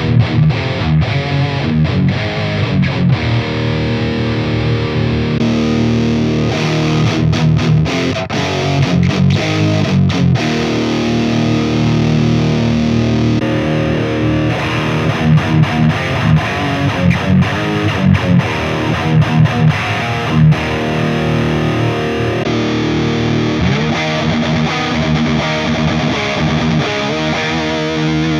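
Distorted electric guitar played through an IK Multimedia TONEX One amp-modelling pedal, chords and riffs recorded direct through an interface. The tone changes a few times, about five, thirteen and twenty-two seconds in, as different amp models are selected.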